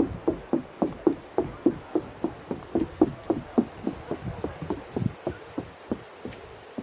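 Quick footsteps thudding on the trail, about three or four a second, dying away about five seconds in.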